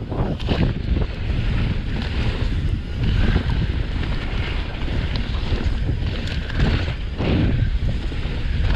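Rushing wind buffeting the camera microphone as a Specialized Demo downhill mountain bike rolls fast over loose pumice dirt, with tyre rumble and a few short knocks over bumps.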